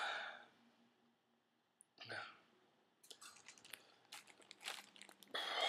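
A person's mouth chewing, with a run of crunching, clicking sounds, followed near the end by a hard breath out against the chili heat.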